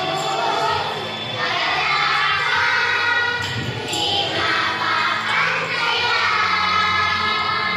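A group of young children singing together in unison with music playing.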